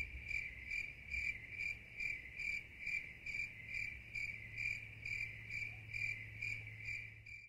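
Crickets chirping in an even rhythm, about two to three chirps a second: a stock night-time sound effect.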